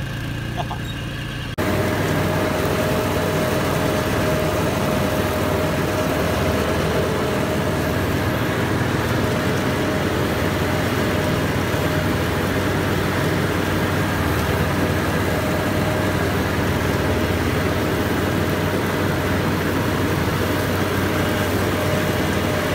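Briefly a quad ATV's engine running at low speed, then, after a sudden jump in level about a second and a half in, a riding mower's engine running steadily with its blades spinning under the deck as it mows tall grass.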